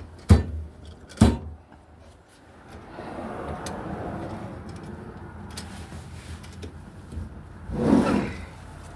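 Metal tool chest drawers being handled: two sharp knocks near the start, then a few seconds of a drawer rumbling along its slides, and a louder rumble near the end.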